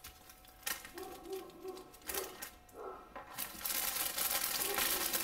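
Plastic bags crinkling as small zip-lock bags of diamond painting drills are handled and set down, with a few light clicks in the first half and steadier crinkling from a little past the middle.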